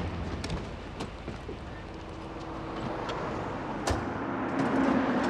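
Street traffic noise around a car, with a few light clicks and a car door shutting about four seconds in; the traffic swells toward the end.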